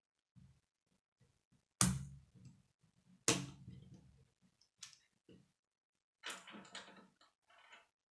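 Plastic K'nex rods and connectors clicking and snapping together as they are fitted by hand. There are two sharp snaps about two and three seconds in, and a spell of clattering clicks near the end.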